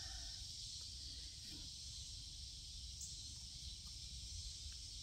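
Faint, steady chorus of cicadas, an even high-pitched drone that does not change.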